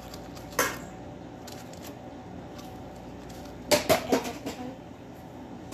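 A metal vegetable corer scraping and clicking inside a zucchini as it is hollowed out for stuffing: one short scrape about half a second in, then a quick cluster of sharper clicks and scrapes past the middle, over a steady background hum.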